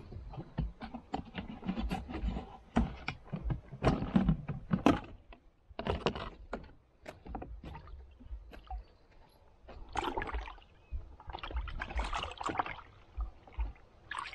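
Water splashing and sloshing with irregular knocks and clatter, from a freshly caught peacock bass being put into a fish-keeping basket in the water. The louder splashes come in a few bursts, the biggest about four, six, ten and twelve seconds in.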